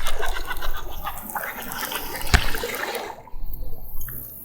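Water splashing and sloshing as a hooked bass is pulled from the lake, with one sharp click a little past two seconds in; it goes much quieter near the end.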